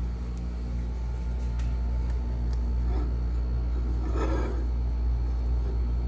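A steady low hum, with a faint brief rustle or clatter about four seconds in.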